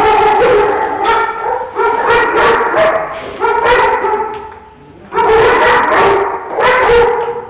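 Dogs in kennel pens barking and yelping, call after call, with a short lull about four seconds in before the barking starts up again.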